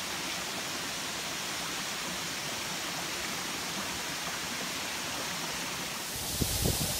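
Steady rushing of a waterfall. About six seconds in the sound changes to a brighter hiss with low, irregular buffets of wind on the microphone.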